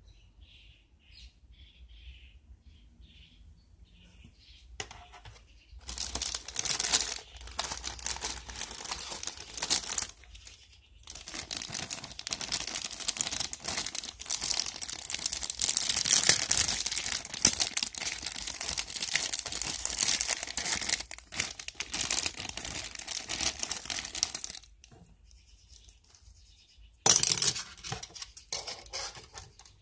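Thin clear plastic bags crinkling and rustling as plastic model-kit runners are unwrapped and handled. It starts about five seconds in, pauses briefly, goes on for a long stretch, and comes back in a short loud burst near the end.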